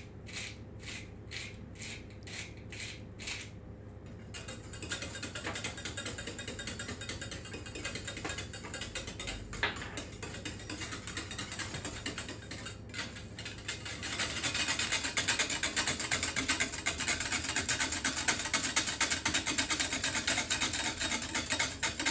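A pepper mill grinding black pepper in even turns, about two and a half clicks a second, stops about four seconds in. Then a wire whisk scrapes and rattles rapidly against a metal saucepan as the egg-lemon sauce is stirred, growing louder about two-thirds of the way through.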